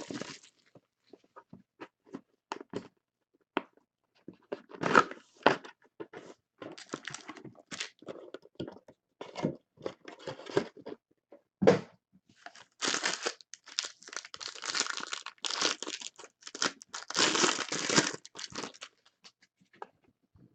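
Wrapping on a hobby box of baseball cards being torn open and crumpled: scattered clicks and short rustles of handling, then two longer spells of tearing and crinkling in the second half.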